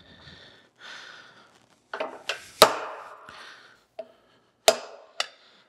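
Hammer striking a transfer punch set in an electric motor's mounting-foot holes, marking the hole centres on the metal motor mount below: about six sharp metallic taps at uneven spacing, starting about two seconds in, each with a short ring.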